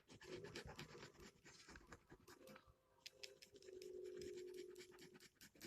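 Faint scratching of a gel pen on paper, many short strokes while colouring in, with a faint steady hum in the second half.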